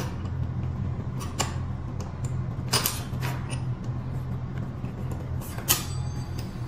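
A long steel axle bolt slid out of an electric scooter's front wheel hub, with a few sharp metallic clicks and knocks as it clears the fork and washers. The loudest clicks come about three seconds in and again near the end, as the wheel comes free of the forks. A steady low hum sits underneath.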